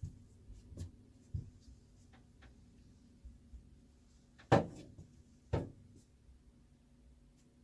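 Household knocks and clatter from cleaning: a few light knocks, then two louder sharp thuds about a second apart around the middle.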